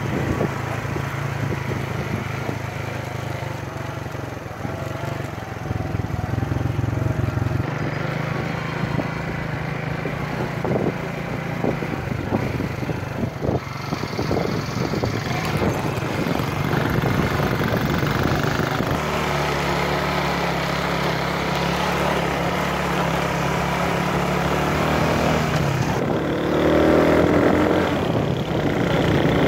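Motorcycle engine running while being ridden over a rough dirt track. The engine note shifts several times, with frequent knocks and rattles in the first half.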